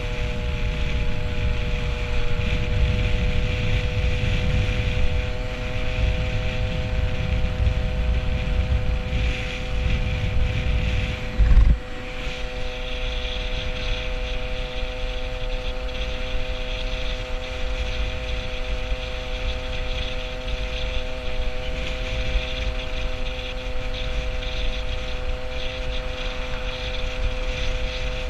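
Peugeot 103 moped's single-cylinder two-stroke engine running at a steady cruising speed, heard from the rider's helmet with wind buffeting the microphone. About twelve seconds in there is a brief loud thump, after which the wind noise drops.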